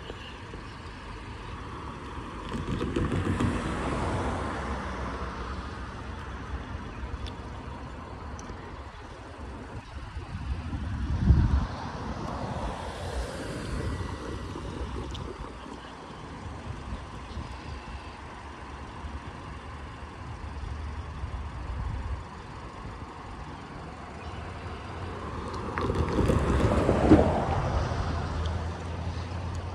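Road traffic going by: three vehicles pass in turn, each swelling and fading over a few seconds, near the start, about a third of the way in and near the end, over a steady low hum.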